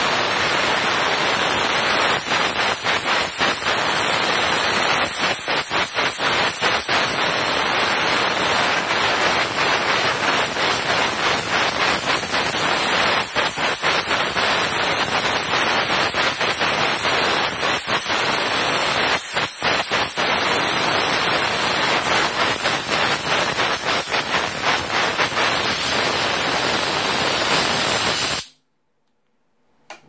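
Compressed air hissing steadily out of an open port of an AirTAC pneumatic solenoid valve, air supplied at P and exhausting at B. The hiss dips briefly several times and cuts off abruptly near the end.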